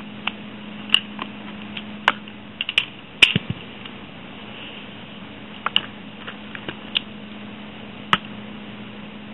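Small plastic clicks and taps of Bakugan toys being handled and set down on their cards, coming irregularly, the loudest a little over three seconds in with a light thump. A faint steady low hum lies underneath.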